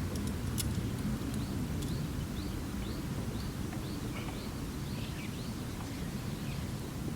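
Campfire crackling with a few sharp pops near the start, over a steady low rumble, while a bird calls a run of short high chirps, about two a second, through the middle.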